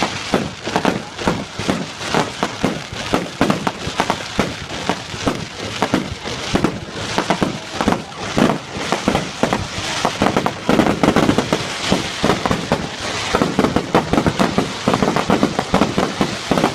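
Fireworks going off in a rapid, near-continuous barrage of loud bangs and crackles, several a second.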